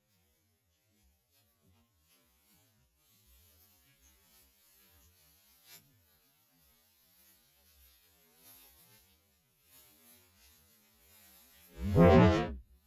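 A goat bleats once near the end, a loud quavering call close to the microphone, after a stretch of faint rustling in the grass.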